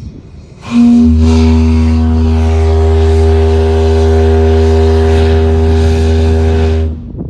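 Battleship Texas (BB-35) ship's whistle sounding one long blast of about six seconds at a steady deep pitch with a stack of overtones. It starts about a second in and cuts off abruptly near the end.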